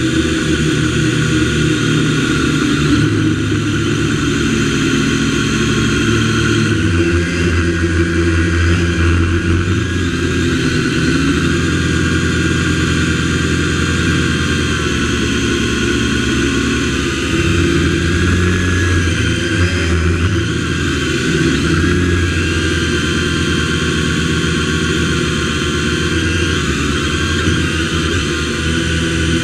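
MJX X101 quadcopter's motors and propellers whirring continuously, heard close up from the camera mounted on the craft. The pitch rises and falls a little throughout.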